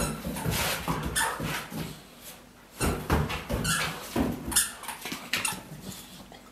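A boxer puppy in a wild fit of play, making a run of short, irregular dog sounds mixed with knocks as it dashes about.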